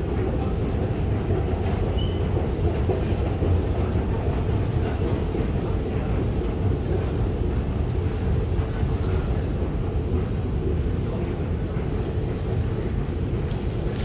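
A steady low rumble that stays even throughout, with no distinct events.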